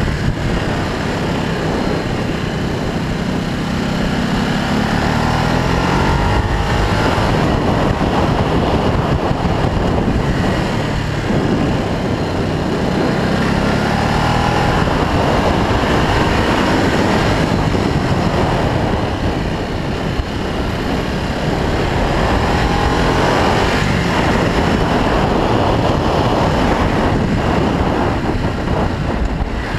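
Ducati Multistrada Pikes Peak's 1198 cc L-twin engine running under way, its revs rising and falling repeatedly through the bends, with wind rushing over the microphone.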